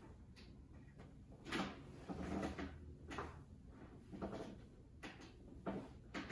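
A handful of soft knocks and creaks from a piano bench as someone turns on it and settles in, spaced about a second apart, the loudest about two seconds in.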